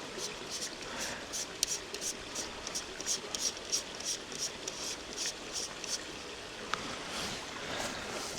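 Small irregular clicks and rustles of hands fitting a magnetic polarising filter onto a camera lens, over a steady wash of running water from a stream.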